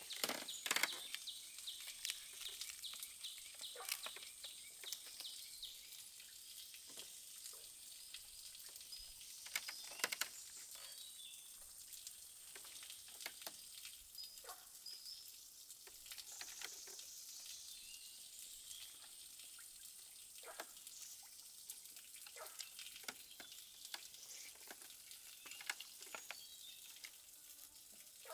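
Food frying in a pan: a steady sizzle with scattered crackles and clicks throughout.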